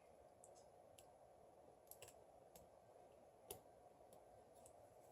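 Near silence with a handful of faint clicks and taps from small phone parts being handled as a smartphone's ribbon cables and connectors are fitted, the clearest about three and a half seconds in.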